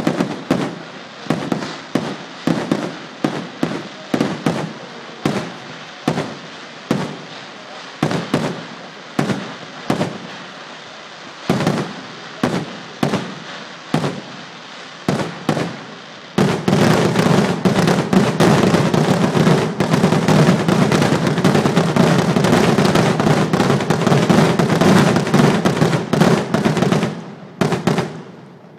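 Fireworks going off: separate sharp bangs about twice a second, then about halfway through a dense, continuous barrage of rapid reports that carries on almost to the end.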